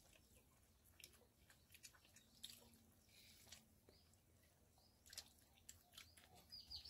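Near silence, with faint scattered clicks and smacks of people eating by hand: fingers mixing rice on a steel plate, and chewing.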